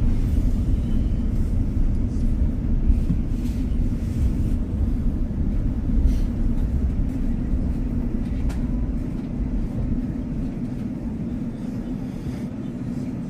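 Inside a passenger train carriage while the train runs: a steady low rumble from the wheels and running gear, with a few faint clicks and rattles. The rumble grows slowly quieter toward the end.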